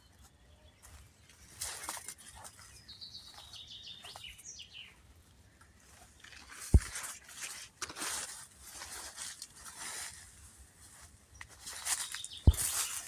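A small bird sings a short run of whistled notes that step down in pitch a few seconds in, against intermittent rustling and brushing noises. Two sharp low thumps stand out, the louder one near the end.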